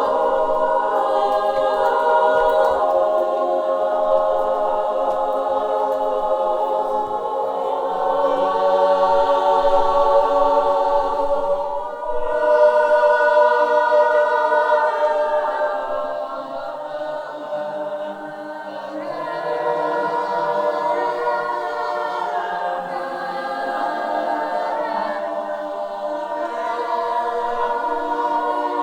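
A choir singing held, overlapping notes in chords, with no words the recogniser could make out. The sound dips briefly about twelve seconds in, then a new chord swells up.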